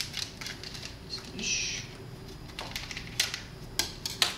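Irregular knife clicks and taps on the counter while smoked sausages are cut open on their plastic packet, with a brief rustle about one and a half seconds in.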